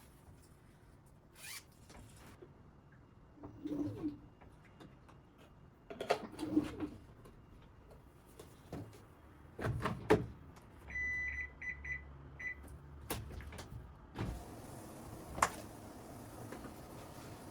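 Household handling noises: scattered knocks and clicks, with a run of four short electronic beeps from an appliance about eleven seconds in.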